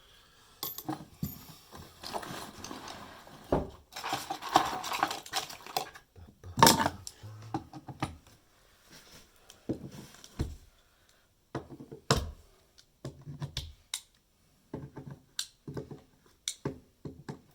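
Carpet staples being pried out of wooden floorboards with a metal hand tool: irregular sharp metallic clicks and short scrapes, with quiet pauses between them.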